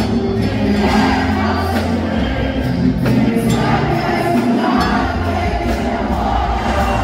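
Loud live regional Mexican band music with singing over the arena sound system, with many voices, likely the crowd singing along, mixed in.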